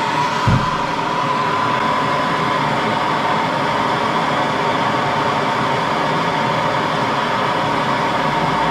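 Gas soldering torch burning steadily with a hiss and a faint steady whistle, heating a brass-to-copper fitting for sweat soldering. A brief low thump about half a second in.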